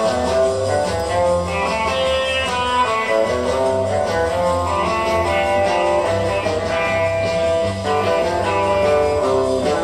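Guitar music playing from a vinyl record on a Braun PS 600 turntable, a run of plucked notes over a steady bass line.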